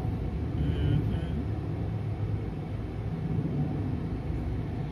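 Steady low rumble with an even background haze, of the kind heard as road or engine noise from a moving vehicle.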